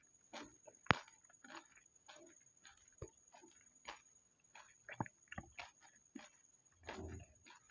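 Close-up mouth sounds of pani puri being eaten: irregular wet chewing and crunching of the crisp puri shells, with a sharp crack about a second in and a longer, fuller chewing sound near the end.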